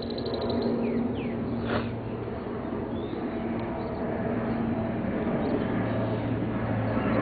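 Steady outdoor background rumble with a low hum that strengthens toward the end, and a few short high chirps about a second and two seconds in.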